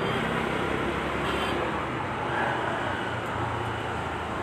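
Steady busy-street background noise, mostly traffic running.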